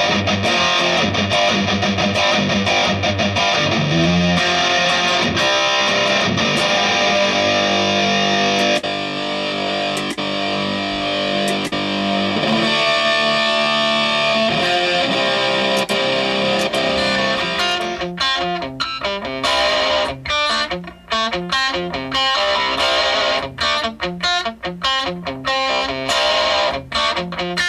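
Distorted electric guitar played through an Avid Eleven Rack: held, ringing chords whose tone changes a few times, then short, choppy muted chugs with gaps in the last third.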